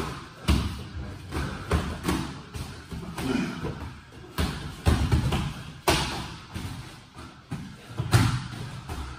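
Boxing gloves thudding during sparring: a string of irregular punches, roughly one every half second, with louder blows about five, six and eight seconds in.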